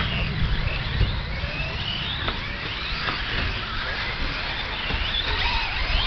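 Electric 4WD short course RC trucks racing on dirt, their motors whining up and down in pitch as they accelerate and slow, several at once. A low rumble of wind on the microphone runs underneath.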